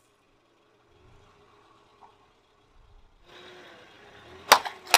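A car tyre rolls slowly over asphalt, then two rubber balloons burst under it: one sharp pop, and a second about half a second later near the end.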